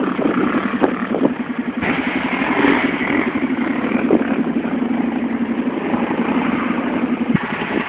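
Small off-road engines running: a quad bike close by and a motocross dirt bike riding through grass, with an even, fast engine pulse throughout. The engine note grows louder and brighter about two seconds in and drops back near the end.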